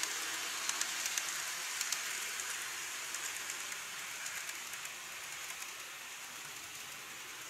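Model train (JR Kyushu 813 series electric unit) running on plastic elevated track: a steady hiss of wheels and motor with light clicking as the wheels cross the track joints. The sound fades as the train runs away out of view.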